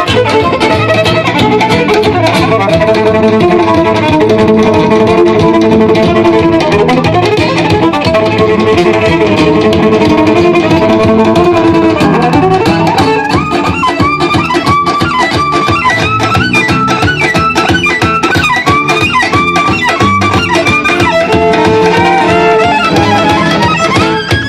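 Fast gypsy-style fusion music played live by a violin-led band. From about halfway, the violin plays quick, repeated upward-sliding notes.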